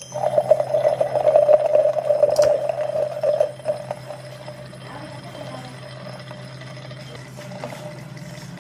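Red-hot steel plunged into a glass jar of oil for quenching: a click as it goes in, then a loud, crackling sizzle that dies down after about three and a half seconds to a faint hiss.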